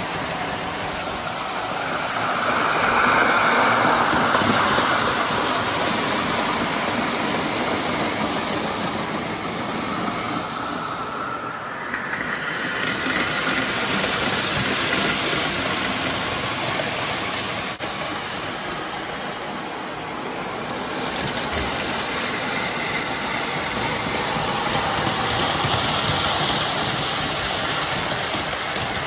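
O gauge tinplate model train running on three-rail tubular steel track, its wheels rolling steadily. The sound swells louder as the cars pass close, most strongly a few seconds in and again near the end.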